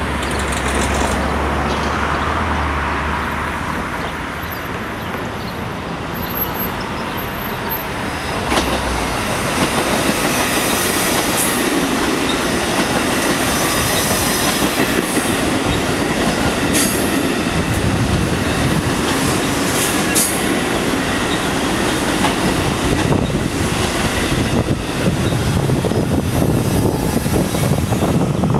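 Bombardier MR-90 electric multiple-unit commuter train passing at speed: a continuous rumble of steel wheels on the rails that grows louder about a third of the way through. Several sharp clicks from wheels crossing rail joints and brief high wheel squeals.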